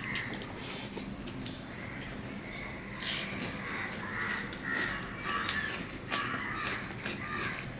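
Eating by hand: fingers mixing rice and curry on a plate and chewing, with a few sharp mouth smacks, the sharpest about three and six seconds in. Harsh bird calls sound in the background, strongest in the middle.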